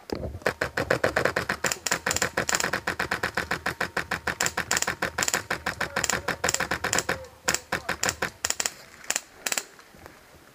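Airsoft rifle firing rapid strings of shots, about eight to ten sharp cracks a second, in several bursts with short breaks, stopping shortly before the end.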